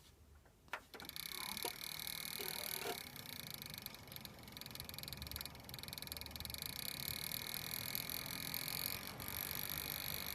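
Computer giving off a steady, high-pitched buzz with a rapid pulsing flutter in it, the annoying noise from inside the PC. It sets in after a sharp click a little under a second in.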